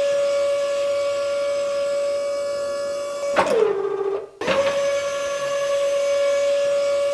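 A small electric motor whining steadily at one pitch; about three seconds in it clicks off and its pitch sinks as it winds down, then a second later it starts again and runs on steadily.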